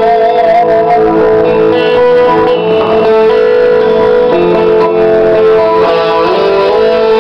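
Electric guitar solo on a Stratocaster-style guitar, held notes with vibrato and a slide up near the end, played over a looped chord progression on the same guitar.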